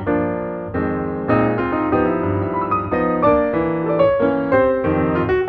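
Background piano music: a melody over chords, fairly loud and continuous.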